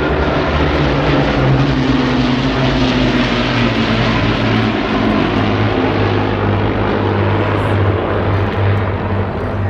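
Avro Lancaster bombers passing overhead, their Rolls-Royce Merlin V12 piston engines making a loud, steady multi-engine drone. The pitch drops slightly in the first few seconds as they pass.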